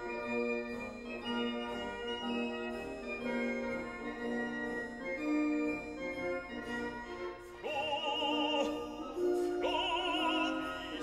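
Background music: slow, sustained keyboard notes, joined about two-thirds of the way in by an operatic singing voice with a strong vibrato.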